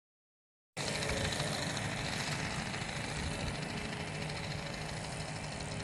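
Small two-stroke engines of a Lazair twin-engine ultralight running steadily as it rolls across grass, with a fast, even buzz. The sound cuts in suddenly after a moment of silence.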